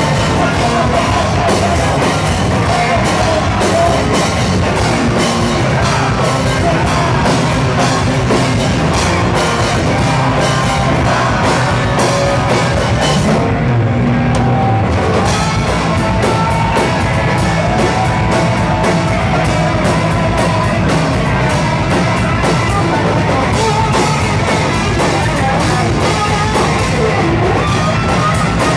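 Hardcore punk band playing live and fast: distorted electric guitars, bass and a drum kit, with vocals over the top. The cymbals drop out briefly about halfway through, then the full band comes back in.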